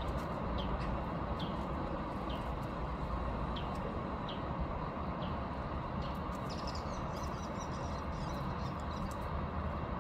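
A small bird chirping a short, falling note about once or twice a second, over a steady outdoor background rumble. The chirping stops about halfway through, and faint scratchy rustling follows near the end.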